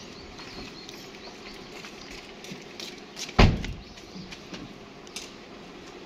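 A car door slammed shut once, a single loud thud about three and a half seconds in.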